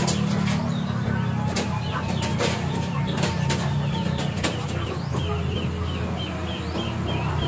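Birds chirping: a quick run of short, high chirps, about three a second, in the last few seconds, with a few sharp clicks or wing flaps earlier, over a steady low hum.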